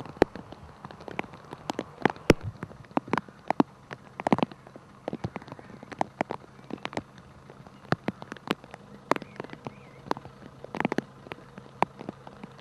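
Irregular sharp clicks and taps, several a second, over a faint steady low hum.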